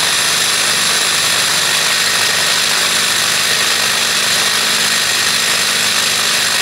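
Silvercrest hand blender's motor running steadily at speed 3, with a high whine, spinning the chopper attachment's blade through carrots.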